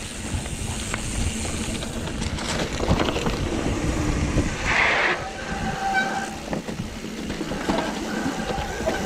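Mountain bike riding a rough trail: tyres rumbling and the bike rattling with many small knocks. There is a brief hiss about five seconds in, then a high squealing tone.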